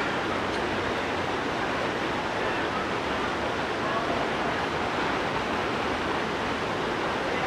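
Steady rush of flowing water, with faint distant voices of people.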